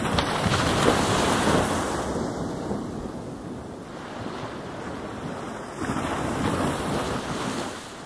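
Ocean surf: waves breaking and washing in, one surge right at the start that fades over a few seconds and a second surge about six seconds in.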